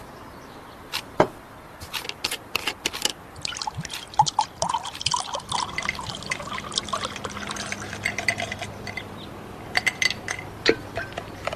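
Water splashing and dripping, as of someone bathing: a run of quick splashes and drops, busiest in the middle of the stretch.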